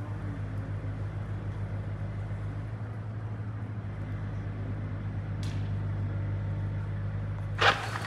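Engine of heavy tree-removal machinery running steadily with a low drone. A single short, loud burst of noise comes near the end.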